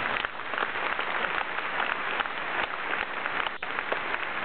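Large stadium crowd applauding, many hands clapping steadily.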